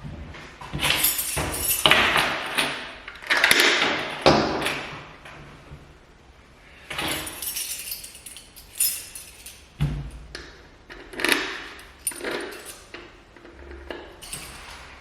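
Laundry being handled: a run of irregular rustles, light knocks and small metallic clinks.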